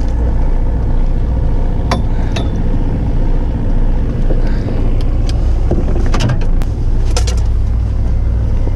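Steady low hum of the fishing boat's machinery, with a few sharp clicks and knocks from rods and tackle being handled, about two seconds in and again a little past the middle.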